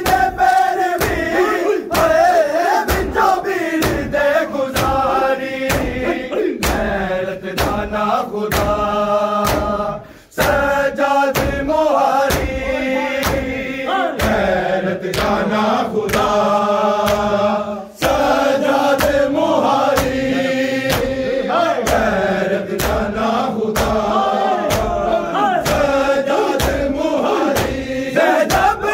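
A group of men chanting a noha, a Shia mourning lament, together in unison, over regular sharp slaps of chest-beating (matam) about twice a second. The chanting breaks off briefly about ten seconds in and again near eighteen seconds.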